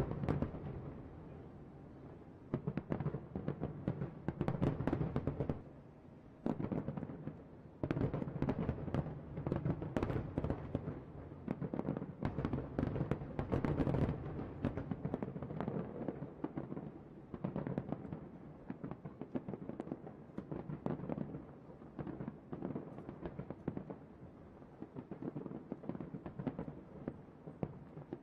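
Aerial fireworks bursting in rapid, overlapping volleys of bangs and crackles, easing off briefly about six seconds in before building again.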